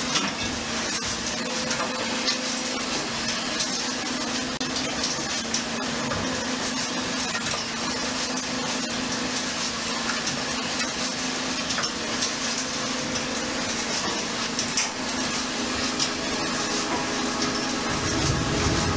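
Machinery on a longline fishing boat's working deck runs with a steady hum, under a constant wash of noise and frequent metallic clatters and knocks.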